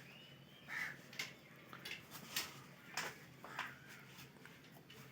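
Faint, irregular clicks and taps of hand work on a motorcycle's wiring while an earth wire is connected, with a short animal call near the start.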